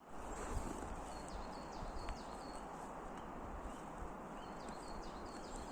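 Small songbirds chirping: clusters of short, high, downward-slurred chirps repeated over and over, over a steady rushing background noise.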